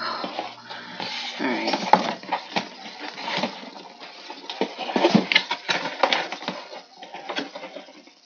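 Cardboard box being handled: the paperboard sleeve sliding off and the box's lid and flaps pulled open, with repeated scraping, rustling and sharp knocks of card on card.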